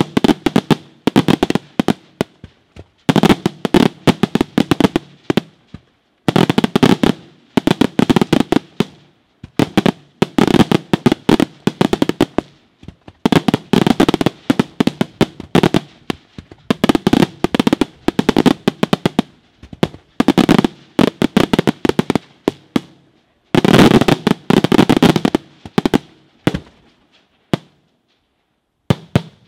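Daytime aerial fireworks shells bursting overhead in clusters of rapid, sharp bangs and crackles. Each cluster lasts a second or two and they come about every three seconds, thinning to a few scattered pops near the end.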